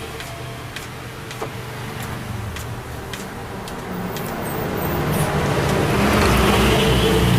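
An engine running steadily, with scattered light clicks, growing louder from about four seconds in.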